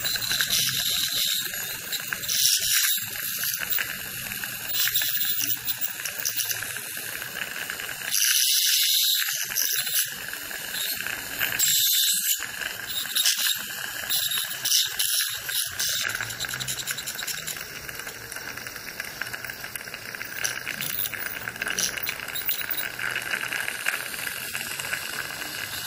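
ACTEON piezoelectric ultrasonic handpiece with a Perfect Margin tip running along the margins of crown-prepared front teeth: a steady high whine with hissing water spray. The hiss comes in louder bursts during the first half and then settles. A dental suction tube hisses alongside.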